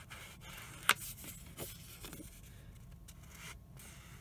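Ink applicator dabbed and rubbed along the edge of thick cardstock: a soft scuffing, with one sharp tap about a second in and a few lighter ticks after it.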